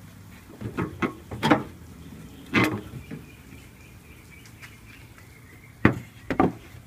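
A handful of sharp knocks and clanks as a metal battery hold-down frame is handled and lifted off the truck's batteries: several in the first three seconds and two more near the end.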